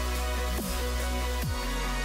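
Electronic background music with a deep, steady bass; bass notes slide downward twice, about a second apart.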